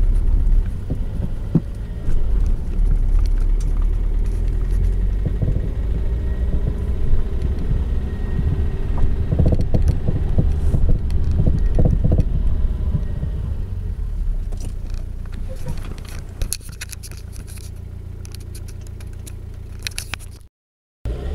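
A car driving over bumps, heard from inside the cabin: a low road rumble with irregular knocks and rattles from the suspension. This is the fault noise whose cause is being put to viewers to diagnose. The rumble eases in the last few seconds, then cuts off briefly near the end.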